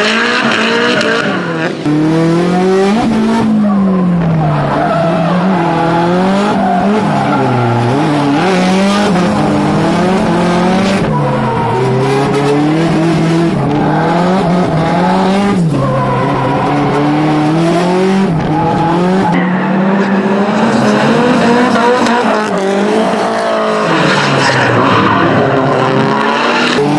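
Drift cars sliding sideways in tandem, their engines revving up and down over and over while the tyres squeal on the pavement.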